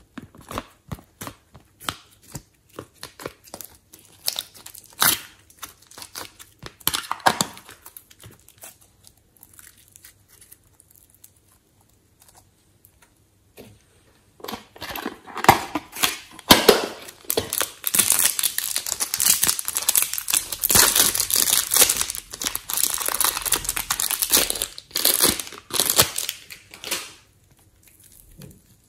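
Hands opening clear plastic clay cases and working soft modelling clay. First come scattered clicks and crackles, then a short quiet pause, then a long stretch of dense crinkling and tearing that stops shortly before the end.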